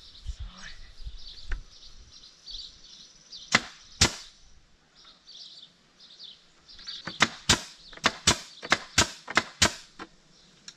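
Pneumatic brad nailer firing nails into pallet boards: a few single sharp shots, then a quick run of about ten, two to three a second, near the end.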